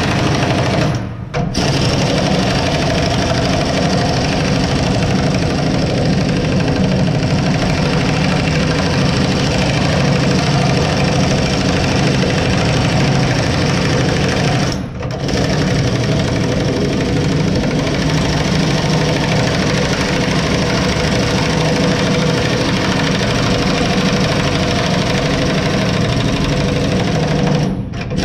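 Loud, steady machine noise, engine-like with a fast rattle, broken by short sudden dropouts about a second in, halfway through and at the very end.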